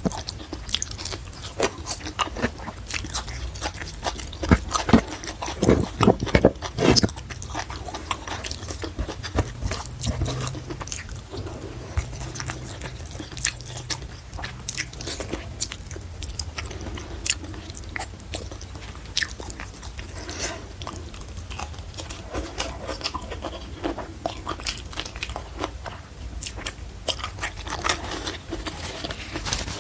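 Close-miked chewing and biting of food, with crunches and many small crackling mouth sounds, as a person eats rice, shrimp and petai beans by hand. The loudest bites come a few seconds in.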